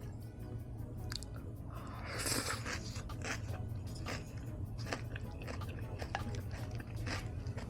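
Close-miked biting and chewing of salad on crunchy pita. A dense crunch comes about two seconds in, followed by scattered crisp crackles as the food is chewed.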